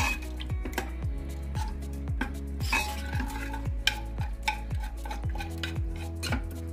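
A steel spoon scrapes and knocks against the inside of a pressure cooker as soft cooked onion-tomato gravy is pressed and stirred to mash it, with many short clicks and wet squelches. Background music with a steady beat runs underneath.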